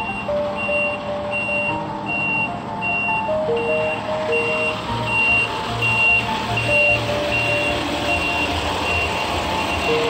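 Truck reversing alarm beeping steadily, about one beep every three-quarters of a second, over the low running of a truck engine.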